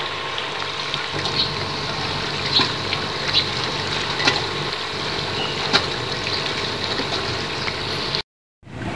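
Steady harbour background: a low engine hum under a wash of water noise, with a few sharp knocks. The sound drops out for a moment near the end.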